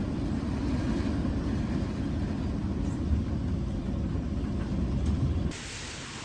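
Steady low rumble of a ride inside a moving vehicle, which cuts off abruptly about five and a half seconds in to a quieter, even hiss.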